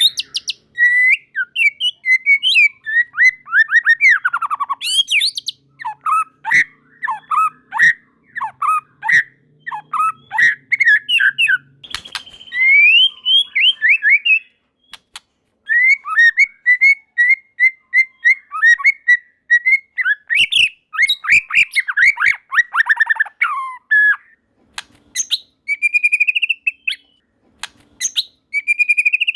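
White-rumped shama (murai batu) in full song: loud, varied phrases of clear whistles, fast trills and sweeping notes. The phrases come one after another, with a few short pauses and a run of evenly repeated short notes partway through.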